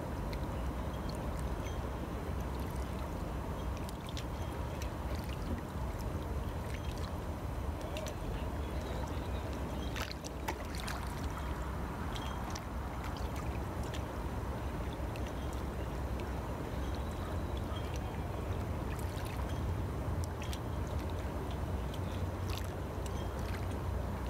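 Harbour water lapping and gurgling against the rocks of the shore, with small scattered splashes. A steady low rumble runs underneath.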